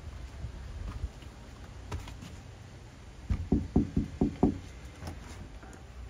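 A run of about five dull knocks in quick succession, a little over three seconds in, over a low steady hum, with a couple of single clicks earlier.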